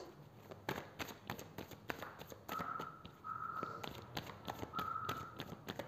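A deck of tarot cards being shuffled by hand: a run of light, irregular card clicks and taps. From about halfway, a short call sounds three times in the background, each about half a second long.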